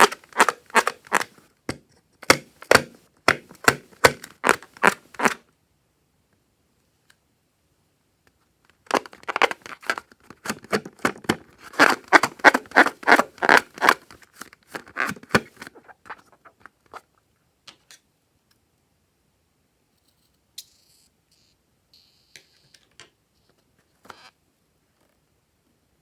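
Sticky slime being squished and worked by hand, giving quick trains of wet crackling clicks and pops. There are two runs of several seconds each, and after that only a few faint ticks.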